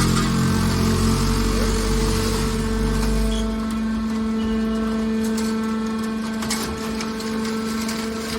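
Car body baler's hydraulic power unit running with a steady hum. A deeper rumble drops away about three and a half seconds in, and a few sharp knocks come later.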